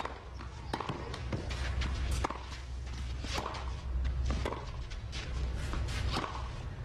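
Tennis rally on a clay court: sharp racquet strikes and ball bounces about once a second, with players' footsteps over a steady low crowd hum.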